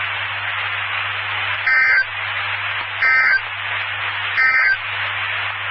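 NOAA Weather Radio end-of-message signal: three short SAME data bursts, each a brief two-tone warble, about a second and a half apart, over steady radio hiss. It marks the end of the severe thunderstorm warning broadcast.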